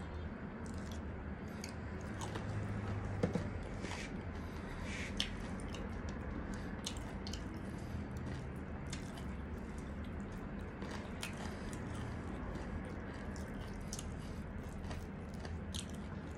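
A person chewing and biting breadcrumb-coated fried chicken, with many short, sharp wet mouth clicks and small crunches throughout and a louder click about three seconds in.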